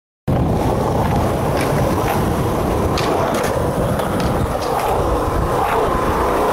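Skateboard wheels rolling over a stone-tiled plaza: a steady rumble with wind buffeting the microphone and scattered light clicks, starting abruptly just after the start.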